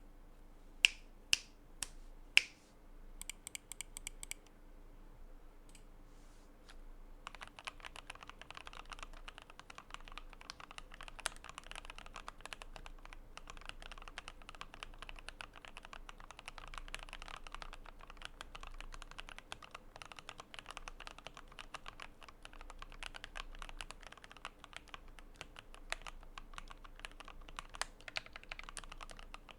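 Keychron Q10 mechanical keyboard with hand-lubed Gateron Oil King linear switches, a polycarbonate plate, plate foam and polyfill dampening, being typed on. A few loud sharp clicks and a quick run of keystrokes open it, then after a short lull comes fast, steady typing from about seven seconds in.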